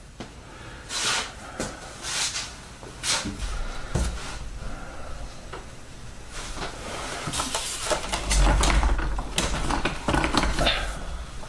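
A large foam RC airplane being handled and turned around on a wooden workbench: scattered knocks, clicks and rustles, with low bumps of the plane's wheels and frame against the bench, loudest about eight seconds in.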